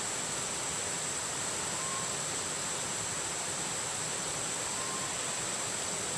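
Steady outdoor background hiss with a constant high drone, and a faint short whistled note twice, about two and five seconds in.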